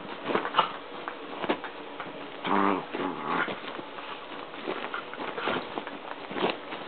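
Two miniature pinschers play-wrestling: scuffling and scattered sharp clicks of mouths and paws, with one short pitched growling cry from a dog about two and a half seconds in.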